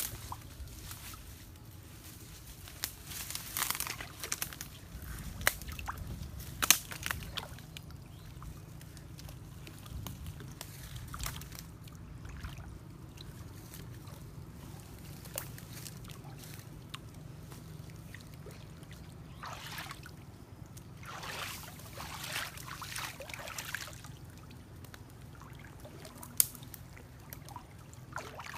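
Water sloshing and splashing around a person's legs as she wades through a shallow stream, in uneven swells, with a few sharp clicks, the loudest about seven seconds in.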